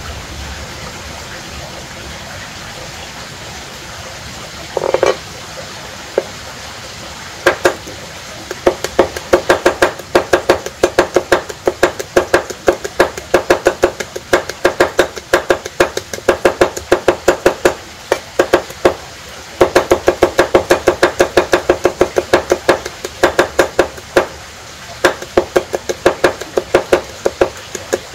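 Knife chopping on a cutting board: rapid, sharp strikes several a second in long runs with short pauses, starting about seven seconds in, over a steady low hiss.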